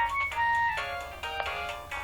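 Nokia 1112 mobile phone playing a ringtone melody: a quick run of short electronic notes.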